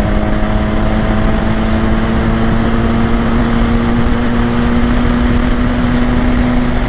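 BMW R 1250 GS Adventure's boxer-twin engine pulling at highway speed over heavy wind rush, its note rising slowly in pitch. The engine note drops away near the end, leaving the wind.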